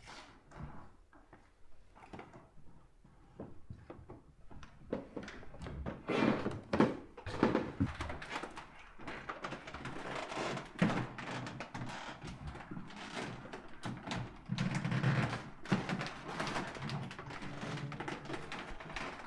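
Irregular knocks, thuds and rustles from someone moving about and handling things in a small room. They are sparse at first and get busier from about five seconds in.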